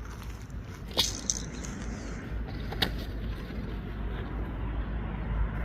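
A few short, sharp clicks, three of them, over a steady low rumble.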